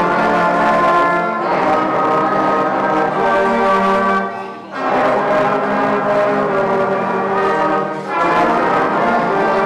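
Children's brass band of trumpets and trombones playing a piece together in sustained notes, with two short breaks between phrases, about halfway through and again near the end.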